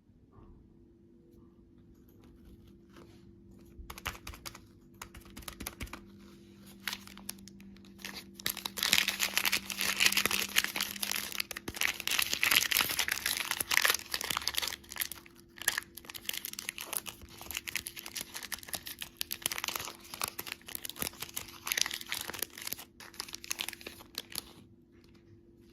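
Candy wrappers being torn open and crinkled by hand: irregular crackling and rustling that starts a few seconds in, is busiest and loudest in the middle, and thins out near the end.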